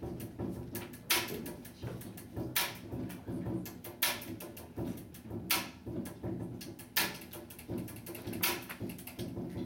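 Hip-hop instrumental beat without vocals: a sharp clap-like drum hit about every one and a half seconds, lighter ticks in between, over a steady low bass line.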